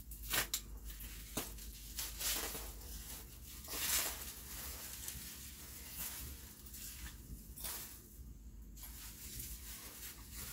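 Plastic bubble wrap crinkling and rustling in irregular bursts as it is pulled off a flat wrapped item, the loudest burst about four seconds in.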